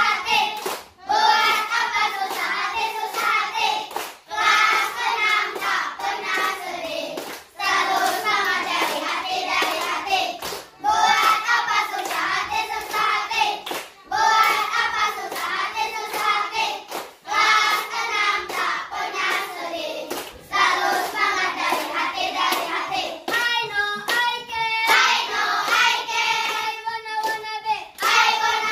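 A class of young children singing a cheer song (yel-yel) together in unison, with hand claps keeping the beat. The song comes in short phrases, with a brief gap about every three seconds.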